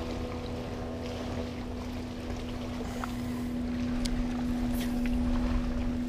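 Bow-mounted electric trolling motor running with a steady whine, with wind rumbling on the microphone more strongly in the last couple of seconds.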